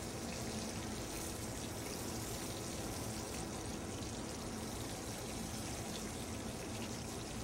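A steady, even hiss with a faint low hum beneath it and no distinct knocks or clicks: the background noise of a restaurant kitchen around a hot pan of shrimp oil.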